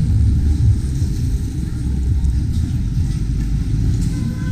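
Steady low rumble of a moving motor vehicle: engine and road noise.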